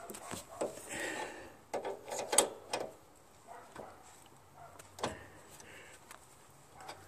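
Half-inch wrench clicking and knocking against the brake adjustment nut and caliper bracket of a John Deere LA105 lawn tractor as it is fitted and turned, in scattered light metal clicks. They bunch in the first second and again about two seconds in, loudest around two and a half seconds in, with one more about five seconds in.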